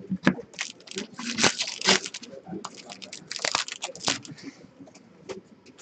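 A foil hockey card pack wrapper being torn open and crinkled, in two bouts of irregular sharp crackles, as the cards are taken out.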